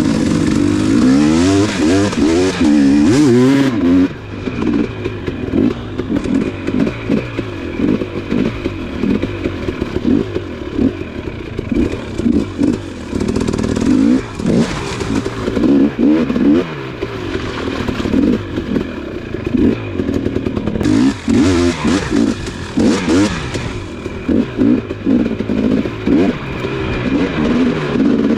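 Dirt bike engine being ridden hard off-road, its revs rising and falling over and over as the throttle is opened and shut every second or so.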